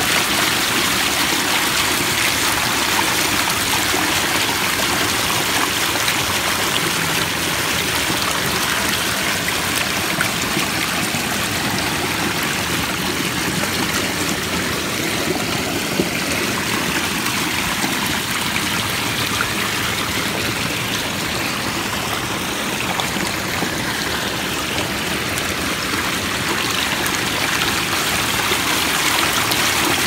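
Water of a pondless garden waterfall spilling from under a flat capstone over stacked rocks and running through a pebble-lined stream: a steady splashing rush.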